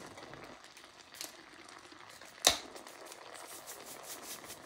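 Prawns, kidney and liver frying gently in a nonstick pan: a soft sizzle with scattered crackles. One sharp knock comes about two and a half seconds in, with a fainter tap about a second in.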